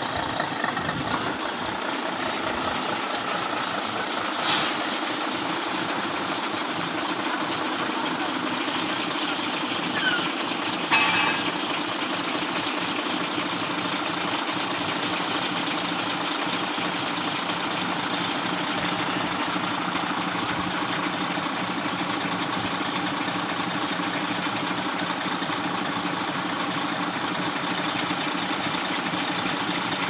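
Diesel engine of a truck-mounted concrete pump (Mercedes-Benz Actros 4141 chassis) running steadily, with one brief clank about eleven seconds in.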